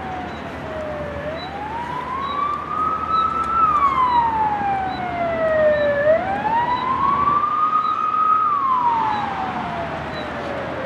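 Emergency-vehicle siren wailing, its pitch sliding slowly down and back up in cycles of about five seconds, loudest in the middle. A faint, short, high beep repeats about once a second.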